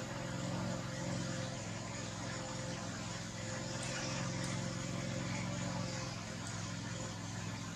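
A steady low motor hum, like an engine running, over a constant hiss.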